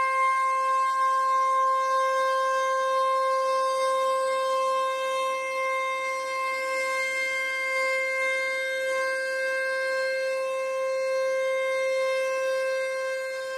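Dam discharge warning siren at an irrigation headworks sounding one long, steady tone at a fixed pitch, easing slightly in level near the end. It warns that a sluice gate is about to open and release water downstream.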